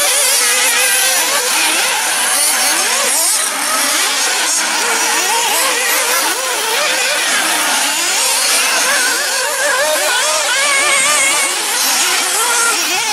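Many 1/8-scale off-road nitro RC buggy engines buzzing at once, their high pitches rising and falling over one another as they rev.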